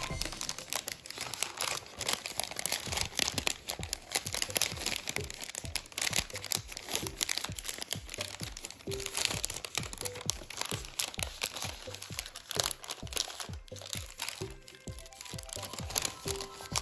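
Origami paper being folded and creased by hand: irregular crinkling and crackling of the sheet, with background music underneath.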